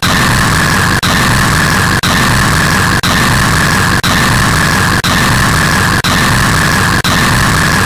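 Very loud, harsh static-like electronic noise, looped about once a second with a brief dropout at each repeat.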